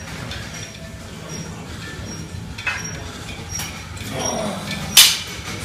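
Iron weight plates clanking on a barbell: a couple of lighter knocks, then one sharp, loud clank near the end, over a steady low hum.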